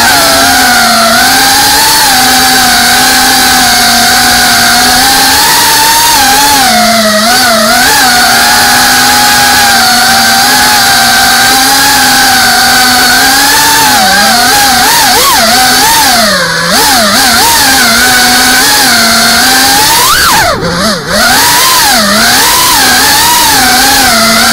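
FPV racing quadcopter's motors and propellers whining loudly, the pitch wavering and swooping up and down with the throttle. The throttle drops off briefly twice in the second half, the second time followed by a quick rising whine as it is punched again.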